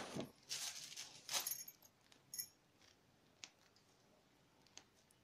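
Faint handling sounds from cake piping: a plastic piping bag of whipped cream rustling for about the first second and a half, then a short light clink about two and a half seconds in and a couple of faint ticks.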